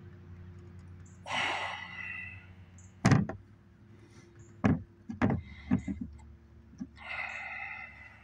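Hand tools and parts knocking and clunking while an oil filter is being worked off a mower engine: one sharp knock about three seconds in, then a run of smaller knocks. Two stretches of breathy hiss come before and after, over a steady low hum.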